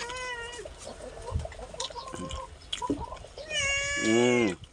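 A cat meowing several times: a short meow at the start, a few fainter ones in the middle, and a loud, longer meow near the end that falls in pitch as it ends.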